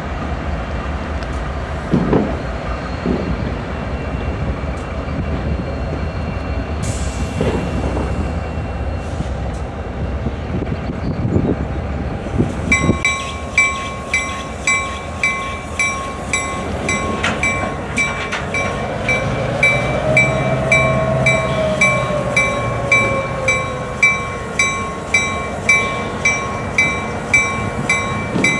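Diesel locomotives running as they move slowly through a rail yard, with a low engine rumble and a few knocks. About halfway through, a locomotive bell starts ringing steadily at about one and a half strikes a second. A drawn-out squeal rises and falls in pitch under it.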